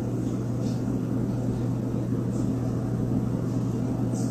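A steady low hum that holds even throughout, with faint soft ticks now and then.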